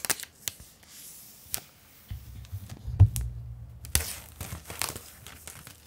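A paper tear strip being pulled off the sealed cardboard box of a pair of Apple AirPods Max, with a thin tearing sound. Sharp clicks and knocks come from the box being handled, including a low rumble and a loud knock about three seconds in.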